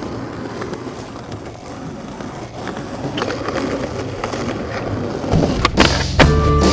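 Skateboard wheels rolling over smooth stone paving with a steady rumble. A sharp tail-pop click comes near the end as the skater ollies.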